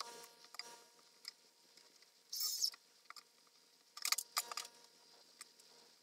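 Tongue-and-groove wood boards being pushed and worked into the groove of a soffit overhead: a short scrape of wood on wood about two and a half seconds in, and a quick cluster of light knocks about four seconds in.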